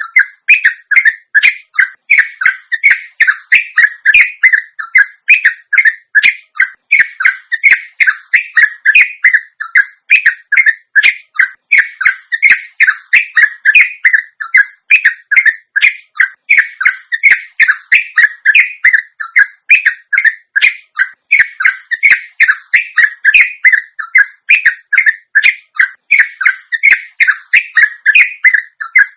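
Yellow-vented bulbul (trucuk) singing a long, unbroken 'ropel' song: a rapid run of short, bright, bubbling notes, several a second, with no pause.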